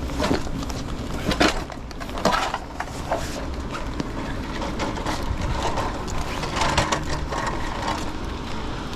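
Several short knocks and scrapes over a steady low rumble, the knocks mostly in the first few seconds.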